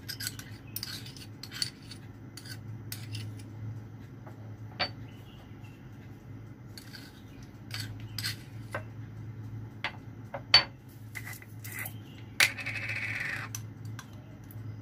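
Kitchen utensils and dishes clinking and knocking in scattered taps, the loudest a sharp clink about ten and a half seconds in, with a scraping sound lasting about a second near the end. A steady low hum runs underneath.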